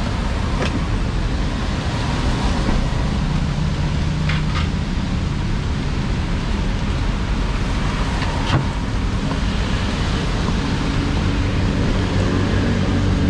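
Steady road traffic noise from passing vehicles, with a few short sharp taps scattered through it.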